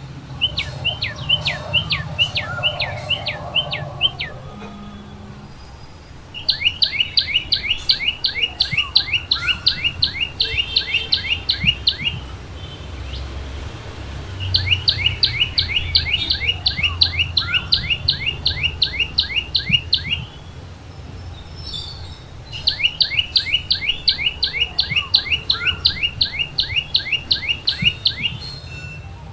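Tailorbird singing: bouts of rapid, repeated sharp notes, each sliding down in pitch, about four or five a second. Four such bouts come with short pauses between them.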